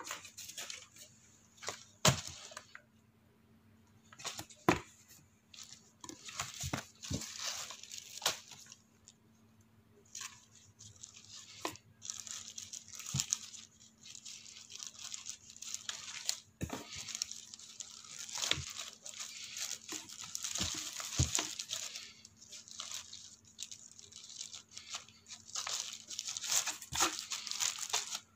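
Clear plastic packing bags crinkling and rustling as they are handled inside a cardboard box, with irregular sharp clicks and knocks; the loudest knocks come about two seconds and five seconds in.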